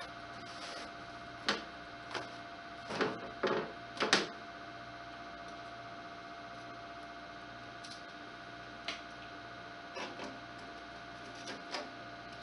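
Sparse light clicks and taps from handling a small screw at a sheet-metal stove pipe, over a steady faint hum.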